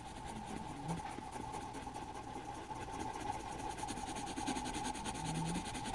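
Grey coloured pencil shading on drawing-pad paper: quick back-and-forth strokes making a quiet, rapid scratching, over a faint steady hum.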